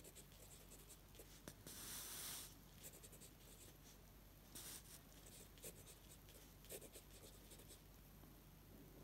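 Fountain pen nib scratching faintly across paper in short handwriting strokes, with a longer stroke about two seconds in.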